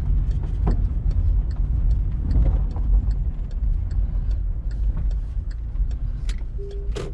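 Volkswagen Saveiro pickup heard from inside the cabin, its engine and road rumble steady and easing off toward the end as it slows. Through it, an even ticking about three times a second, like the turn-signal relay.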